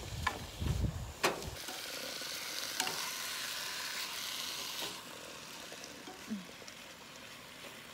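Raw chicken strips sizzling in a hot non-stick frying pan on a camp stove as a spatula stirs and scrapes them. A few knocks and bumps come in the first second and a half. The sizzle is loudest from then until about five seconds in, then fades to a fainter hiss.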